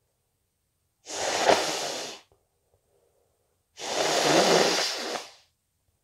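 Two hard nose blows into a tissue, each lasting over a second with a gap of about two seconds between them, from someone with a stuffy, snotty cold.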